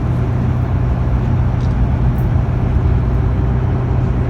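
Tour boat's engine running steadily: a constant low hum under an even wash of noise.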